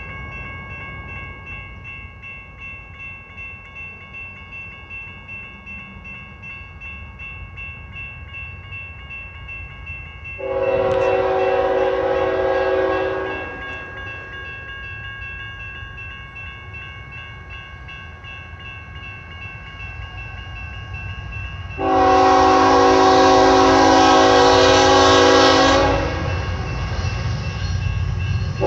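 CSX ET44AC diesel locomotive's multi-chime air horn sounding two long blasts, one of about three seconds and then a louder one of about four seconds some ten seconds later, with a third starting at the very end. Under it runs the low rumble of the approaching locomotive and a bell ringing steadily.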